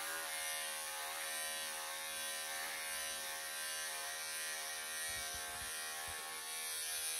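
Wahl electric pet clippers buzzing steadily as they shave through a Persian cat's thick coat.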